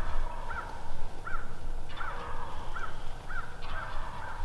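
Wild turkeys clucking: a slow, even series of short calls, a little more than one a second.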